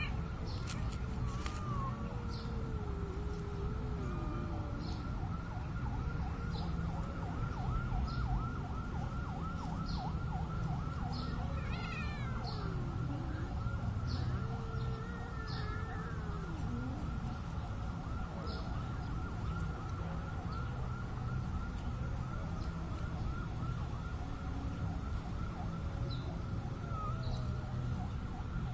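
Cats yowling while mating: low, drawn-out wails that waver and slide down in pitch. Under them run a steady low rumble and a fast, even pulsing tone.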